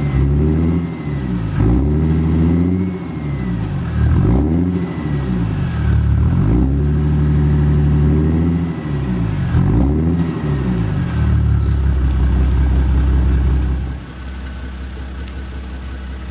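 Audi 3.0 TDI V6 diesel engine revved in a series of quick blips, the revs rising and falling every second or two, some held briefly higher. About fourteen seconds in it drops back to a steady idle.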